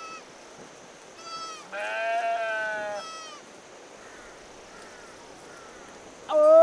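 Herd livestock bleating: a few short calls about a second in, then one long wavering call and another short one, and a loud call near the end.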